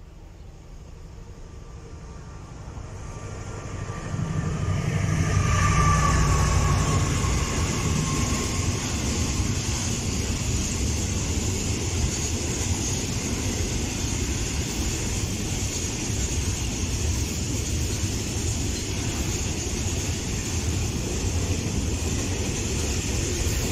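A container freight train running through the station, its wheels and wagons making a steady loud rumble and rattle on the rails. The sound builds over the first few seconds as it nears, with a brief falling whine about five seconds in.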